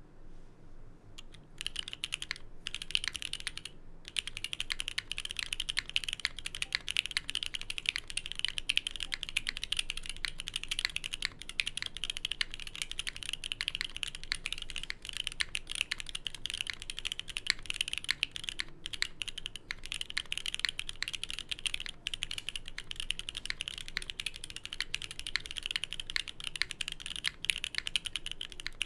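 Fast, continuous typing on a Geonworks F1-8x custom mechanical keyboard with Gateron Silver Snow linear switches, lubed with 205g0 and filmed. The PBT keycaps sit on an aluminium leaf plate. Typing starts about a second and a half in, with a brief pause a couple of seconds later.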